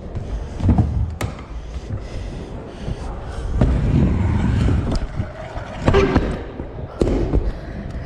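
Stunt scooter rolling over skatepark ramps, its wheels and deck hitting down with a few sharp clacks and thuds.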